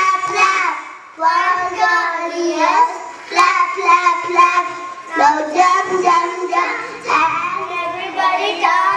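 Young children singing together into microphones, a simple rhyme in short phrases with brief breaks between them.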